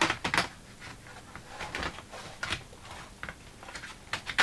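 Plastic clicks and knocks of a battery being fitted into the base of an Asus laptop, with a few light knocks through the middle and a sharper click at the end.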